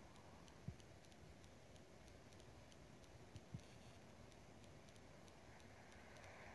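Near silence: hall room tone with faint, regular clicking and a few soft thumps.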